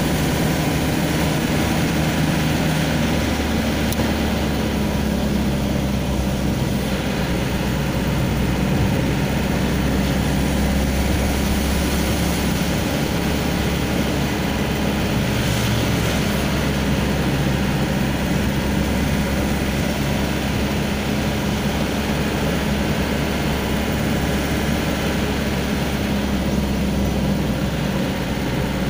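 Vehicle engine running steadily with road and tyre noise, heard from inside the cabin while driving.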